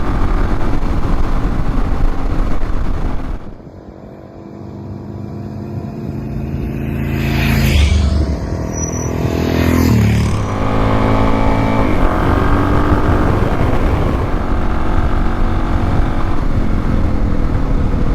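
Motorcycle engine and wind noise while riding. Partway through, the sound drops off suddenly, then a vehicle approaches and passes close with a falling pitch, and the steady engine note of riding resumes.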